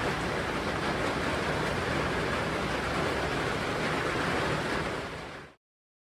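Steady heavy rain falling, an even hiss that cuts off suddenly about five and a half seconds in.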